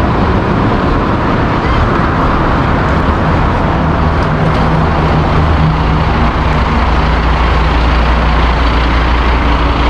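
Fire engine's engine running steadily and loudly, with a deep rumble and a low hum that strengthens about four seconds in.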